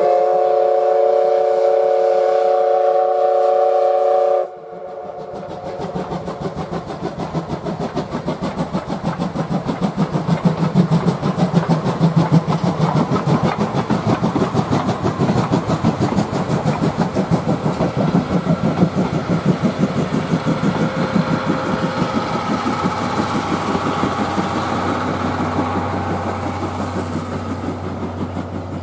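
Steam locomotive C11 207's whistle sounding one long chord of several notes at once, cut off sharply about four seconds in. Then the locomotive's fast exhaust beats and the rumble and clatter of its coaches on the rails as the train passes, building and then slowly fading, with a low steady hum near the end.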